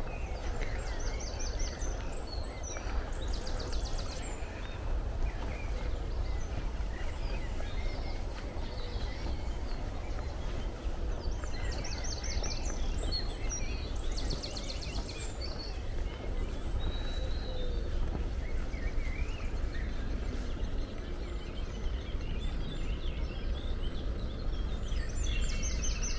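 Steady, distant rushing noise, which the walker takes for a waterfall or running water. Over it, a songbird sings a short trilled song a few times.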